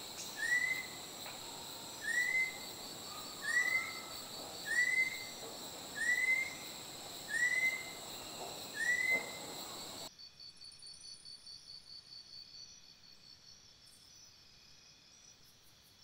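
Chestnut-collared kingfisher singing: seven short, upslurred whistles, about one every 1.3 seconds, over a steady high drone of forest insects. The whistles stop about ten seconds in, leaving only fainter, pulsing insect sounds.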